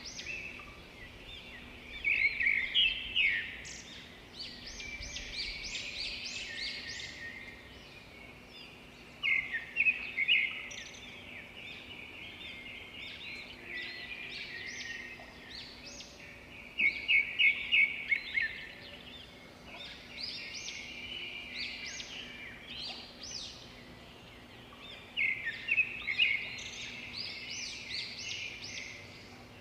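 Birds chirping and trilling in a dense chorus of short, high calls, with louder bursts of rapid chirps about every eight seconds.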